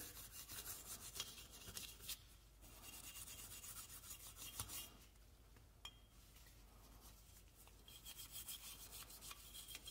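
Faint dry scratching of a cleaning brush scrubbed back and forth over a pistol's slide and barrel, loosening solvent-soaked carbon fouling and unburnt powder. The strokes die down for a couple of seconds past the middle, then pick up again.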